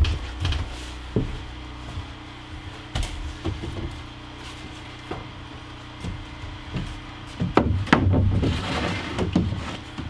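OSB shelf boards handled and slid into a wooden 2x4 closet frame: scattered knocks of board on framing, with a burst of louder knocks and scraping near the end as a board is pushed into place.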